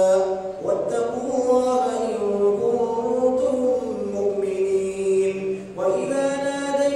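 A man reciting the Quran aloud in a melodic chant (tilawah) during Taraweeh prayer. He holds long notes that slide in pitch, with a short breath about half a second in and another near the end.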